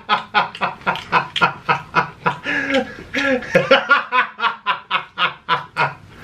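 A man laughing hard: a long, unbroken run of rhythmic ha-ha pulses, about five a second.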